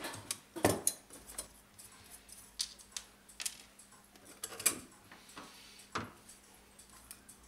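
Brass clock-case parts (pillars, plates and small finials) clinking and knocking as they are unscrewed, handled and set down on the workbench: scattered small metallic clicks and taps, the sharpest about half a second and four and a half seconds in.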